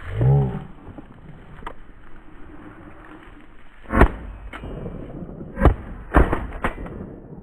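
Shotgun shots: a loud first shot about four seconds in, then two more, about one and a half and two seconds later, with a smaller click-like knock just after them. A short pitched cry is heard at the very start.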